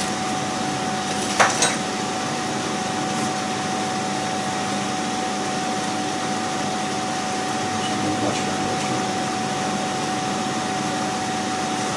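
Steady whirring hiss from a fan, with one constant tone running through it, and a single short knock about a second and a half in.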